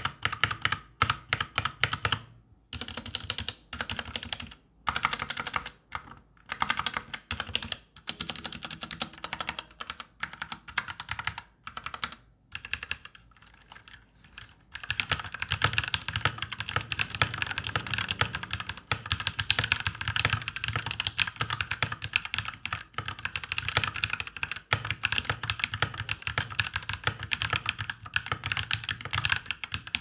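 Typing on an E-Dra EK361W 60% mechanical keyboard fitted with red linear switches. For about the first half the keys are pressed one at a time with gaps between strokes; about halfway through it turns into fast, continuous typing with both hands.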